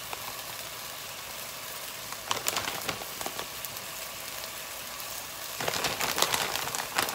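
Diced chicken in enchilada sauce sizzling steadily in a stainless steel pot on a gas burner. Twice, about two seconds in and again near the end, plastic crinkles and crackles as the bag of shredded cheese is shaken over the pot.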